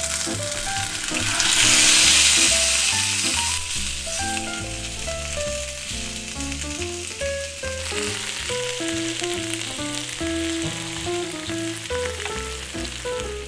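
Food sizzling hard on a hot cast-iron plate. It swells loudest about two seconds in, then settles to a steady sizzle, over background music.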